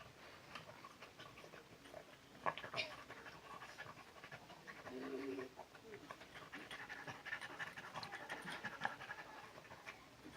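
Dog panting, with scattered short clicks and knocks and a brief pitched sound about halfway through.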